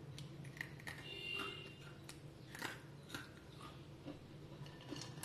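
Faint, irregular crunching of crisp fried karasev (gram-flour sev) being bitten and chewed.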